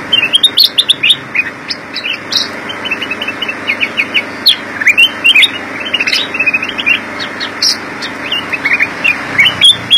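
Black-crested bulbul singing a fast, busy run of short, high chirping notes, many in quick succession with only brief pauses.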